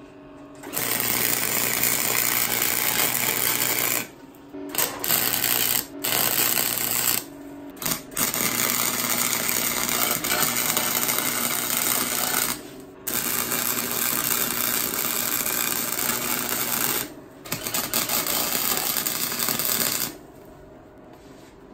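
MIG welder arc crackling as steel end caps are welded onto square steel tube, in several runs of a few seconds each with short breaks between, stopping about 20 seconds in. The welder is a cheap one with few settings, which the welder takes to be dumping too much heat into the small joints.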